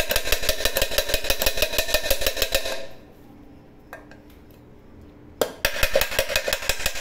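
A small hammer tapping rapidly on a rivet inside a metal milk pot, peening it over from the inside to fix the handle, with the pot ringing at each strike. The tapping stops for about two and a half seconds around the middle, with one lone tap, then starts again.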